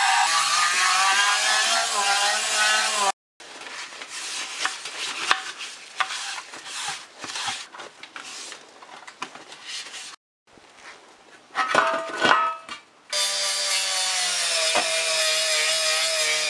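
Handheld rotary tool with a small brass wire brush running steadily against a rusty steel toaster tray, scrubbing off rust and grime. It cuts off about three seconds in, giving way to scattered light knocks and rubbing as the metal tray is handled. The tool runs again for the last few seconds.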